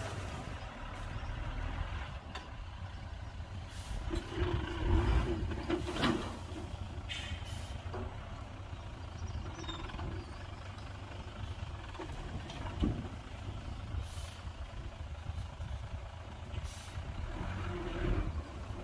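Heavy diesel truck and earthmoving machinery engines running steadily, with several short air-brake hisses and a few knocks.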